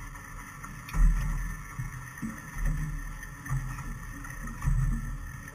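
Low, irregular rumbles and thumps on a boat on the water, roughly once a second and strongest about a second in, over a faint steady hiss.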